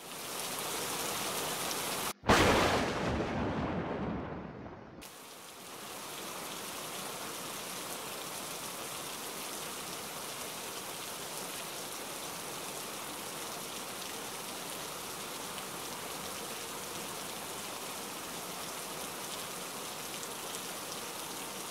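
Heavy rain falling, with a sharp thunderclap about two seconds in that rumbles away over the next few seconds. After that comes a steady downpour.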